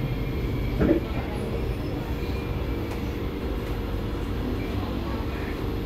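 Steady hum of a Kawasaki–Nippon Sharyo C751B metro car standing at a station platform, heard from inside the car, with a brief louder sound about a second in.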